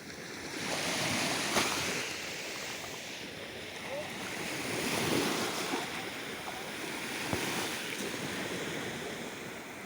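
Small waves washing ashore on a calm sea, swelling and fading every few seconds, with a brief sharp tick about a second and a half in.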